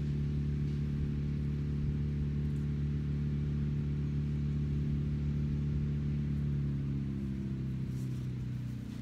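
Engine of a tree-removal crew's equipment running steadily with a constant hum, easing off a little near the end.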